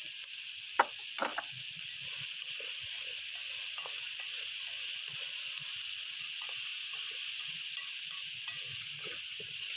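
Chopped onion, chicken, tomato and green chilli frying in ghee in an aluminium karahi: a steady sizzle, with a wooden spoon scraping and stirring against the pan. About a second in come two sharp knocks as the chopped tomato and chilli are tipped in from a clay bowl.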